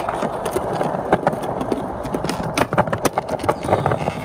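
Skateboard rolling over rough, cracked concrete while the skater pushes: a steady rumble of the wheels broken by frequent clicks and knocks.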